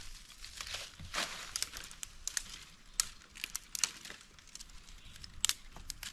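Dry birch bark crinkling and crackling as it is handled and torn by hand, in irregular sharp crackles.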